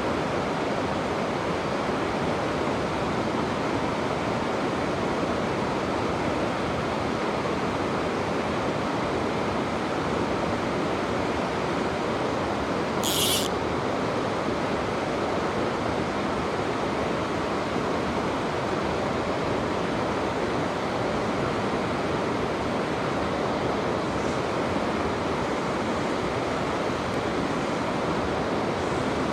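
Mountain stream water rushing steadily. A brief high hiss sounds once, about thirteen seconds in.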